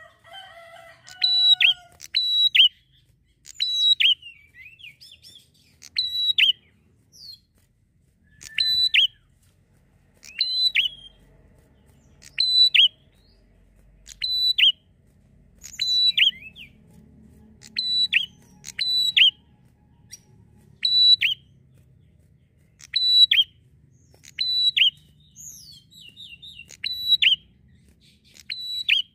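A prinia (prenjak) singing in a loud, sharp, repeated call: short high notes, each dropping in pitch, given over and over about every one to two seconds, sometimes in quick pairs.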